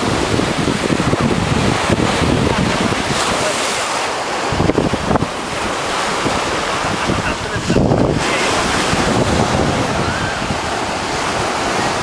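Ocean surf breaking on a sandy beach, a continuous wash of waves, with wind buffeting the microphone.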